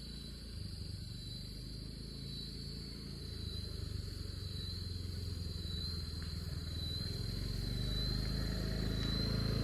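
Motorbike engine running with a low rumble that grows steadily louder, under a steady high-pitched insect trill.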